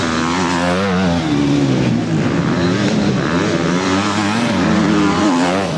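Several motocross bike engines revving up and down as the bikes ride past on the dirt track, their pitches rising and falling and overlapping.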